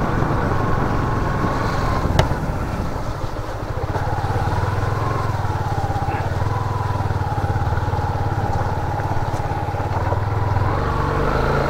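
Small motorcycle engine running at low, steady road speed: a low pulsing note with a faint whine above it that drops slightly in pitch a few seconds in and comes back up near the end. A single sharp click about two seconds in.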